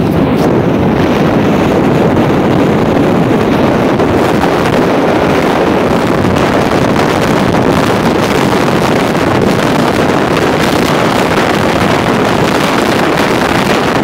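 Strong wind blowing across the camera microphone: a loud, steady buffeting rumble with no letup.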